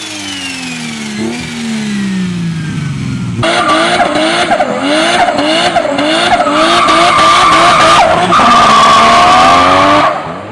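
A turbocharged performance car engine revving hard. A rev dies away; then, after a sudden change, the engine is blipped up and down about twice a second, and near the end it holds a steady high note with tyre squeal.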